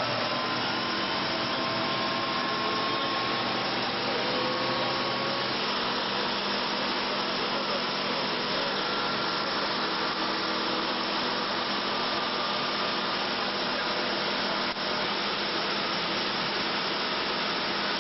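Helicopter engines and rotor heard from inside the cabin: a loud, steady rushing drone with faint whining tones that rise slightly in pitch over the first few seconds.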